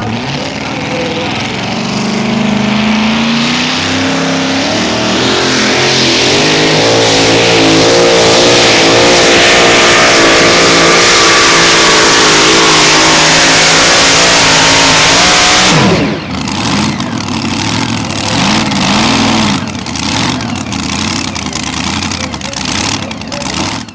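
Pulling truck's engine at full throttle hauling the sled: the note climbs, then holds high with a wavering pitch. About sixteen seconds in, the throttle is cut and the engine note drops sharply, followed by lower, uneven engine sounds.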